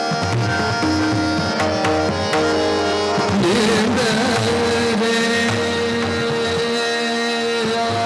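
Hindustani classical vocal music: a male voice over a harmonium, tabla and a tanpura drone. A little over three seconds in, the voice slides and wavers into one long held note.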